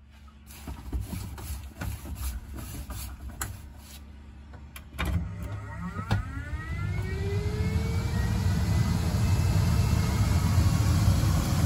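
Fantastic Fan roof vent fan being switched on: a few clicks and knocks, then about five seconds in a click and the motor spins up with a rising whine that levels off, followed by a steady rush of moving air.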